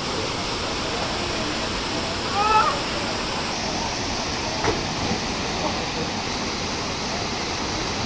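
Steady rush of a waterfall pouring over rocks into a pool. A voice calls out briefly about two and a half seconds in.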